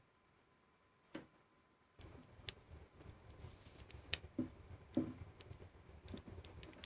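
Faint, scattered clicks and light taps of car parts being handled, over a low background rumble that comes in about two seconds in.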